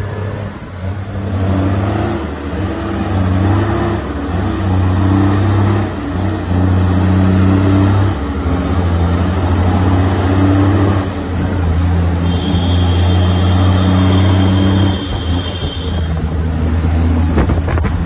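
Heavy diesel truck engine pulling hard on the road, a loud low drone that runs in long pulls of a few seconds each with brief dips between them.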